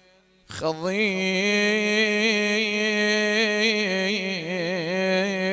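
A man's voice chanting a religious salutation in Arabic as one long held melismatic note with wavering ornaments, starting about half a second in after a brief pause.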